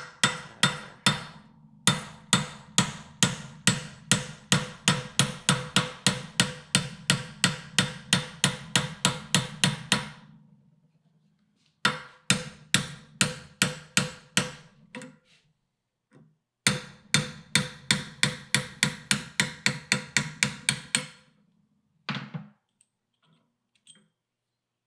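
A hammer strikes a steel kingpin bushing driver in rapid, even blows, about three a second, each with a metallic ring. The blows come in three long runs with short pauses between, and a few last taps follow near the end. This is an old kingpin bushing being driven out of an early Ford spindle.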